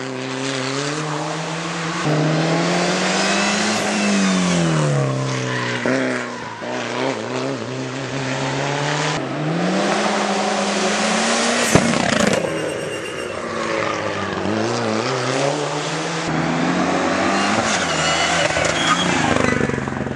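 Race car engines revving hard on a hill climb. The engine note rises and falls several times through gear changes, with a single sharp crack about twelve seconds in. Near the end another car's engine grows louder as it approaches.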